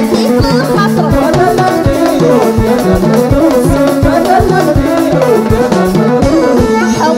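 Live Soussi Amazigh folk music from a band: a drum kit keeps a steady beat under a melodic instrument line, with little or no singing in this passage.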